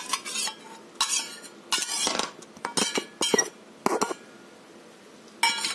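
A spoon clinking and scraping in a series of short clatters as curd is scooped and tipped into a blender jar of sprouts.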